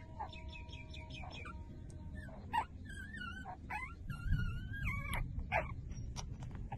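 Week-old puppies squeaking and whimpering while nursing: a quick run of short high squeaks, then several longer wavering whines that rise and fall. A low rumble joins about four seconds in.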